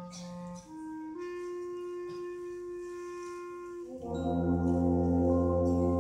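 Wind orchestra playing: a few instruments hold soft sustained notes that change every second or so, then about four seconds in the full band comes in louder on a sustained chord with strong low brass.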